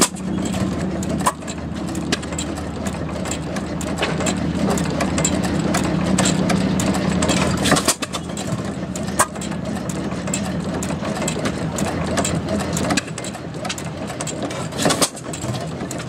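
Antique stationary gas engines running, with irregularly spaced sharp firing pops and clatter over a steady hum. The hum drops away about halfway through.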